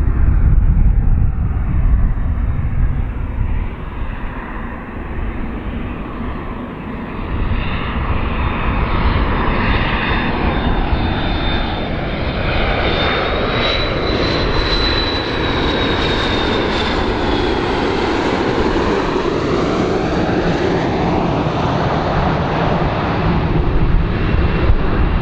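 A large airplane's engines pass by. The roar is steady, with a thin high whine that rises slightly and then falls near the middle, and the noise shifts in colour as it goes by.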